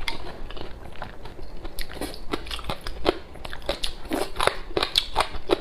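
Close-miked chewing with crisp, irregular crunches as a person eats spicy shredded papaya with rice porridge; the crunches come thicker in the second half.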